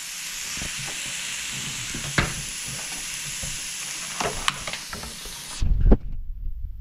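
Thin slices of beef sizzling on a hot ridged grill pan, with a few sharp clicks of metal tongs against the pan. The sizzle cuts off suddenly about five and a half seconds in, and low rumbling and a thump follow.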